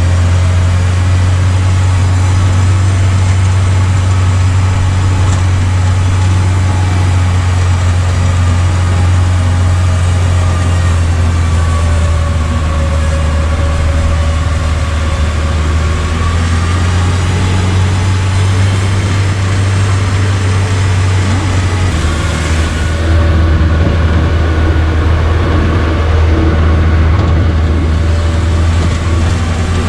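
Engine running steadily at a constant speed with a strong low hum, a little louder for the last several seconds.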